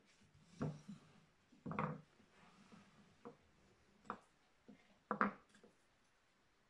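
Wooden-handled carving chisels and gouges knocking against a carved wooden relief panel as they are handled and set down: a series of short, separate knocks, the loudest around two seconds and five seconds in.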